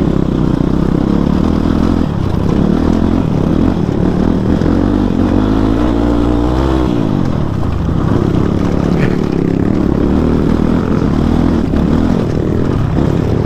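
Motorcycle engine running while riding over a rough off-road track, revving up and easing off about six seconds in.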